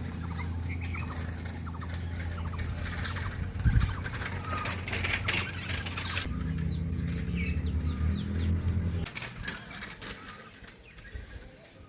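Birds chirping, with repeated wing flapping and clicks, over a low steady hum that stops about nine seconds in.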